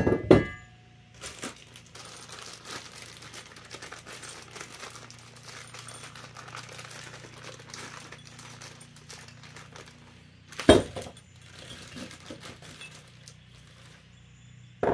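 Steel engine-stand parts being handled: a couple of sharp metal clanks with a brief ring at the start, then several seconds of small rattling and clicking, and another loud metal knock about two-thirds of the way through and again at the very end.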